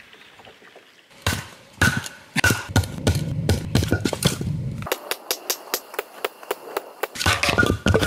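A log being split by hand: a series of sharp knocks and thuds, with a run of quick clicks in the second half.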